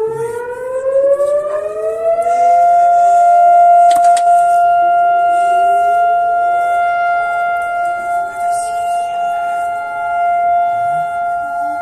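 Civil defense siren sounding for Israel's Memorial Day for the fallen, winding up in pitch over about two seconds and then holding one loud steady tone, the signal for the national moment of standing silence. Fainter rising tones sound underneath, and a sharp click comes about four seconds in.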